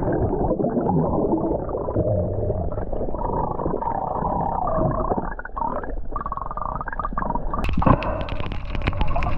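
Underwater sound through a submerged camera just after a diver jumps in: a dense, muffled rush of bubbles and churning water with little above a middle pitch. Near the end comes a run of sharp clicks.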